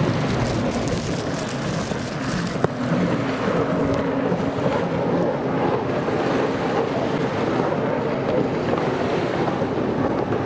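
Engines of racing stand-up jet skis running at speed on open water, a steady engine sound that wavers in pitch, mixed with wind buffeting the microphone and the wash of waves. A single sharp click about two and a half seconds in.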